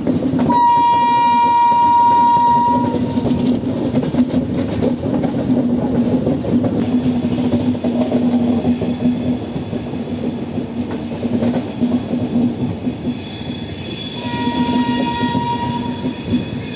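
Train horn blowing twice, a blast of about two and a half seconds near the start and another, fainter one near the end, over the steady rumble and rail clatter of the moving train.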